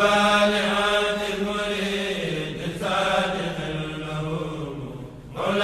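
Voices chanting in unison, a religious chant sung in long held phrases whose pitch slides down at the phrase ends. The voices dip briefly near the end, then a new phrase begins.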